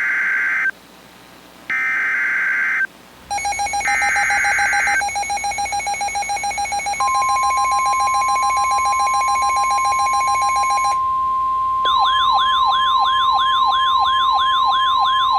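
Emergency Alert System tones. Three short bursts of screeching SAME data header come first, then a rapidly pulsing buzzer tone. The steady single-pitch weather radio alert tone starts about seven seconds in, and from about twelve seconds a siren-like wailing tone sweeps up and down over it.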